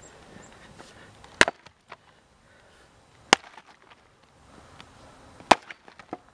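Three blows of a Phantom Bevel Jersey axe chopping into a log, about two seconds apart, each a sharp crack with a few small knocks of chips after it.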